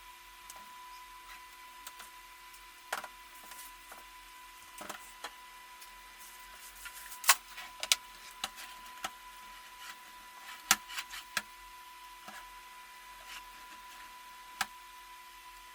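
Scattered light clicks and knocks, with a few sharper ones about seven, eleven and fifteen seconds in, over a faint steady high-pitched tone.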